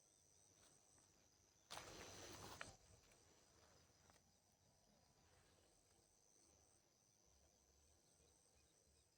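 Near silence with a faint steady high-pitched tone. About two seconds in there is a brief rustle lasting about a second that ends in a sharp click.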